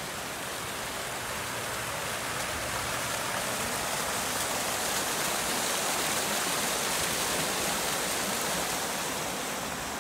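Water from a row of fountain jets splashing into a long basin: a steady rushing splash that swells a little in the middle and eases off near the end.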